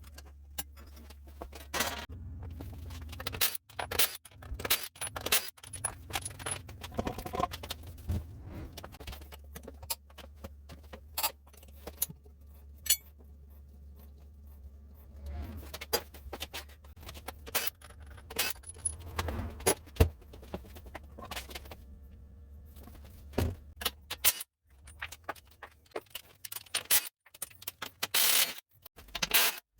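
Metal tools and parts clinking and knocking in a series of short, sharp clicks, with brief pauses between them, over a steady low hum.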